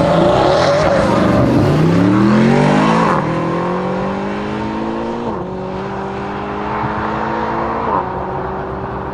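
Mercedes-Benz SLS AMG Black Series V8 accelerating hard at full throttle. The revs climb steeply and loudly at first, then drop sharply at upshifts about three, five and eight seconds in, climbing again after each shift as the car pulls away.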